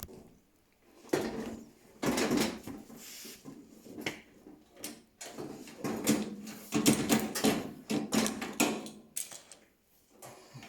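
Objects being handled and moved about: a run of irregular knocks, clatters and scrapes, busiest in the middle, with short quiet gaps near the start and near the end.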